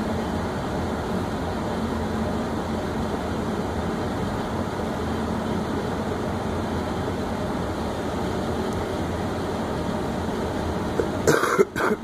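Steady rush of air and hum from a running HVAC air handler's blower during system testing. About 11 seconds in, a few brief knocks and clicks of handling.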